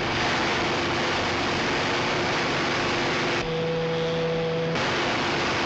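Outboard-motor speedboats running at full throttle across the water: a loud, steady engine note mixed with the rush of spray and wake. A little over three seconds in it switches for about a second and a half to a second boat's engine, a steadier hum with less hiss, then back to the first.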